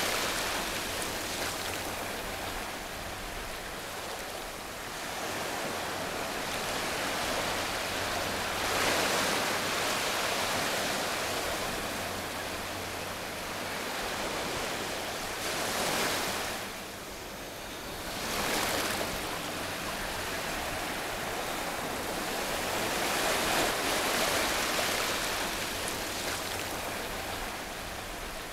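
Ocean surf washing in and out: swells of rushing noise build and fade every several seconds. A faint low hum sits under the first half.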